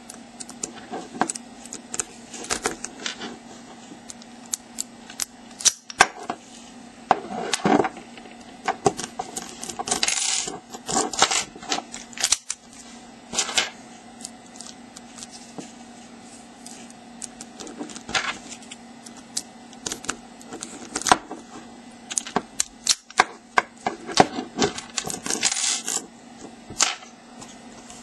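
Lock pick and tension wrench working the pin tumblers of a Master No. 5 laminated steel padlock: irregular sharp metallic clicks and ticks, with a few short stretches of scraping as the pick works the pins.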